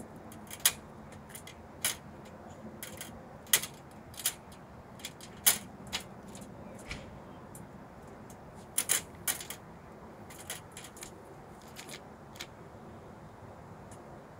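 A squirrel moving about inside a wire-mesh live trap, rattling the wire with irregular sharp metallic clicks, a few louder ones bunched together about nine seconds in.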